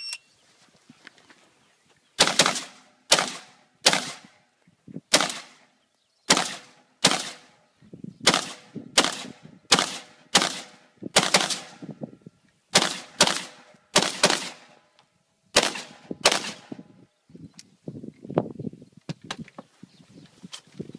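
AR-15 rifle firing a string of about eighteen shots at an uneven pace, roughly one every half second to a second, each with a short ringing tail. The shooting stops about sixteen seconds in, and fainter knocks follow.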